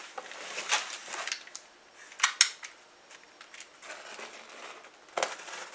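A blade cutting open the packing tape on a cardboard box: irregular short scrapes and clicks, with a sharper snap about two and a half seconds in.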